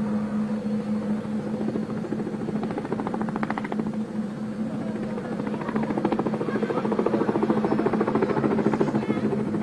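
Tandem-rotor military helicopter hovering low and sliding sideways: a steady hum under the rapid chop of its rotor blades. The chop grows stronger in the middle and again from about two-thirds of the way in.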